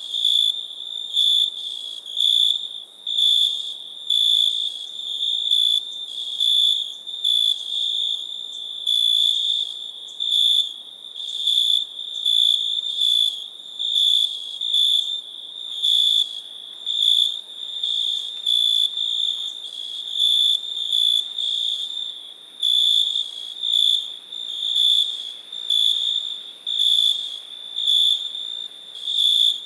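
Cricket chirping: a high, ringing trill repeated about once a second in an even rhythm.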